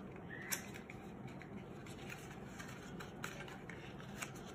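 Small cardboard box being opened by hand: faint rustles and a few small clicks, the sharpest about half a second in.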